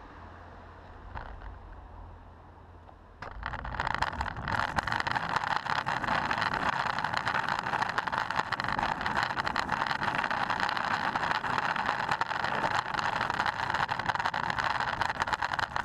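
Longboard wheels rolling over asphalt, heard through a GoPro Hero 3 mounted on the deck: a loud, steady rattling rumble full of fine crackle from the road surface. It starts suddenly about three seconds in, after a quieter low hum while the board is still.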